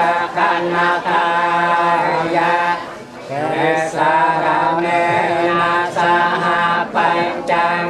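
A man chanting a funeral prayer through a microphone, a melodic recitation with held, wavering notes over a steady underlying tone, pausing briefly about three seconds in.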